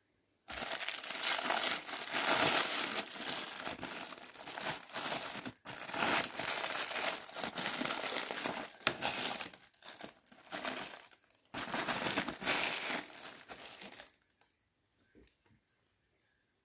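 Plastic packaging wrap crumpled by hand, a dense crinkling that breaks off briefly about eleven seconds in and stops a couple of seconds before the end.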